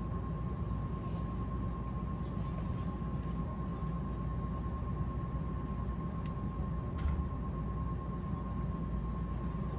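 Passenger-cabin sound of the Odakyu 50000-series VSE Romancecar running slowly into the station: a steady low rumble with a thin, steady high-pitched hum over it and a few light clicks. A single low thump comes about seven seconds in.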